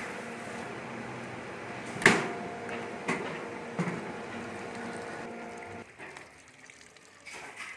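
Stainless-steel coconut processing machine running with a steady hum, with a sharp loud knock about two seconds in and lighter knocks after it; the machine's sound stops about six seconds in.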